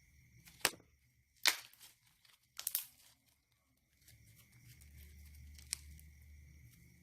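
Slime mixed with crushed Nabati wafer being squeezed and stretched by hand, giving several sharp crackling pops and tearing sounds, with quiet gaps between them.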